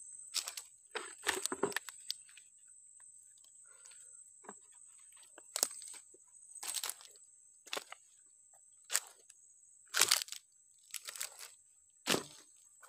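Footsteps crunching and snapping on dry leaf litter and twigs, an irregular crunch every second or two, over a steady high-pitched whine.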